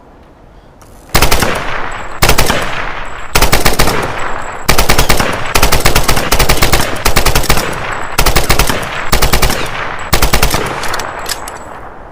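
Type 100 submachine gun (8 mm Nambu) firing a string of short rapid-fire bursts, about nine in all, starting about a second in. Each burst leaves an echoing tail that dies away near the end.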